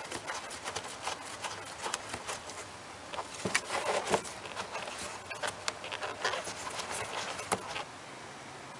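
Irregular light clicks and scrapes of a gloved hand handling and working loose hard plastic engine-bay parts.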